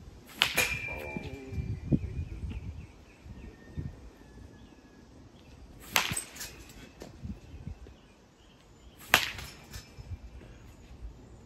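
A bat hitting tossed balls three times during batting practice, sharp cracks about three seconds apart. The first hit leaves a brief ringing after it.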